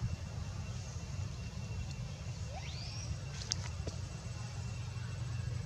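Outdoor background: a steady low rumble, with one faint rising chirp about two and a half seconds in and a few faint clicks just after it.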